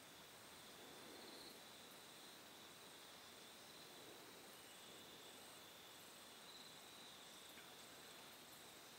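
Near silence, with a faint, steady, high-pitched insect chorus over quiet outdoor background hiss.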